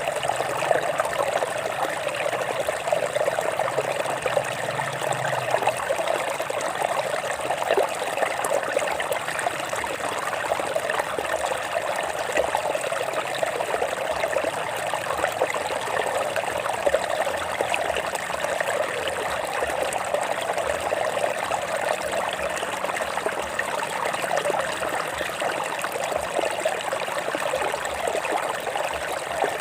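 Stream water flowing and trickling over rocks: a steady, mid-pitched rush with many small splashes, unchanging throughout.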